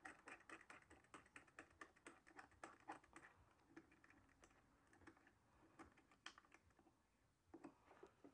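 Faint, quick ticking of a small metal nut being spun by hand off a circuit breaker's threaded stem, several ticks a second, thinning to a few scattered ticks after about three seconds.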